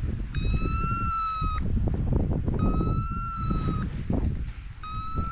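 Beeper collar on a pointing dog sounding long electronic beeps, about a second each with about a second between, three in all, the pattern such collars give when the dog stands still on point. Wind rumbles on the microphone underneath.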